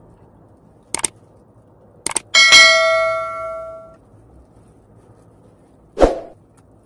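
Tableware knocking together while eating: a couple of light clicks, then a sharp clink of a dish that rings and dies away over about a second and a half, and a dull knock near the end as a plate is set down.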